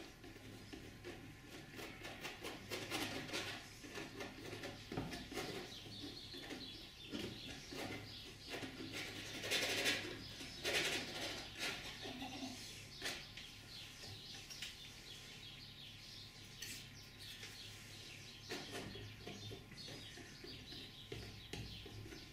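Painting knife working oil paint onto a stretched cotton canvas: irregular scraping and dabbing strokes, with a cluster of louder ones about ten seconds in. A faint steady hum underneath.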